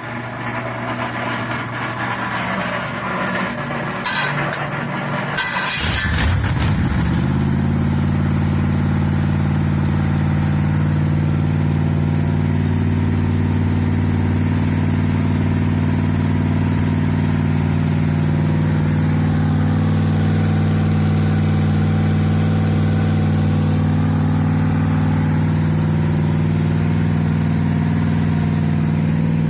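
Freshly rebuilt Pontiac 350 V8 being started: a few seconds of rough, unpitched noise with sharp clicks, then it catches about six seconds in and settles into a steady idle.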